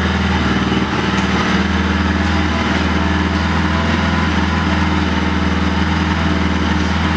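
Bajaj Pulsar NS200's single-cylinder four-stroke engine idling steadily with the throttle held slightly open, at a fast warm-up idle of about 2500 rpm.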